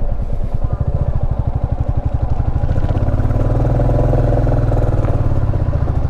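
Motorcycle engine running under way with a steady, rapid beat of firing pulses, a little louder for a couple of seconds in the middle.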